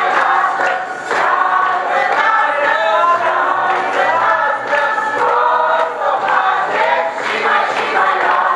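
A group of people singing loudly together, many voices at once.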